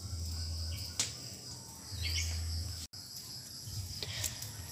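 Insects chirring steadily at a high pitch, with a few sharp clicks and a low rumble twice in the first three seconds. All sound cuts out for an instant about three seconds in.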